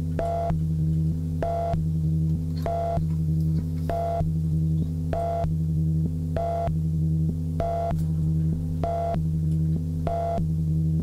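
Electronic noise rig of effects pedals and synth units: a steady low drone with a buzzy pitched pulse that repeats about every second and a quarter, nine times in all.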